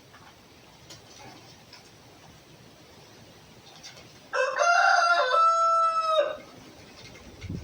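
A rooster crowing once, a single call about two seconds long, a little past halfway through.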